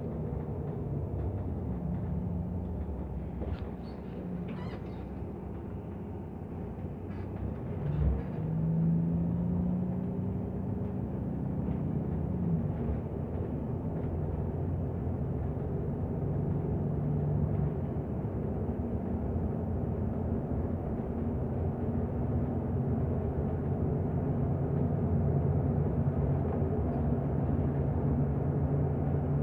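Bus engine and road noise heard inside the cabin while driving, a steady low drone whose engine note shifts up and down. There is a single knock about eight seconds in and a few light rattles before it.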